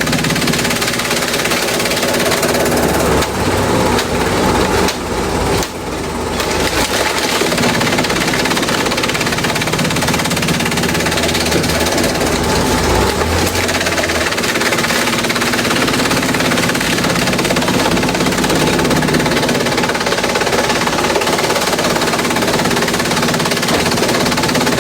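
Industrial bamboo shredder running, a loud dense clatter and grind as it breaks up bamboo, dipping briefly about five seconds in.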